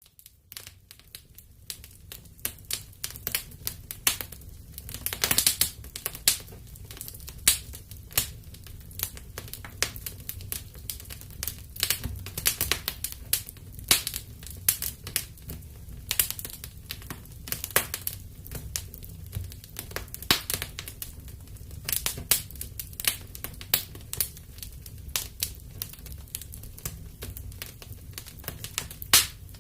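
Wood fire crackling in a fireplace: irregular sharp pops and snaps, several a second, over a steady low rumble of the burning.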